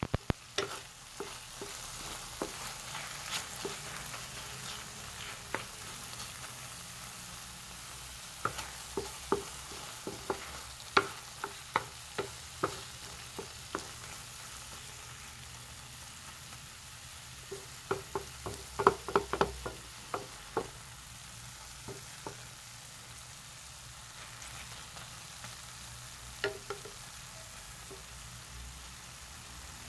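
Chopped tomatoes and peppers sizzling softly in a frying pan. A spatula scrapes and knocks against the pan in two spells of stirring, one near the middle and one about two-thirds through.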